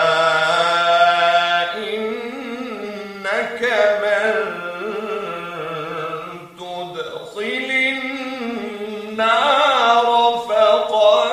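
Quran recitation in Arabic with tajweed: one voice chanting melodically, holding long drawn-out notes with wavering ornaments. Short breaths break the line about three, six and a half and nine seconds in.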